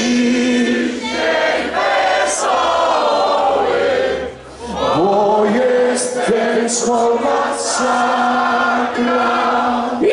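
A group of voices singing a song together in long held notes, with a short break about four and a half seconds in.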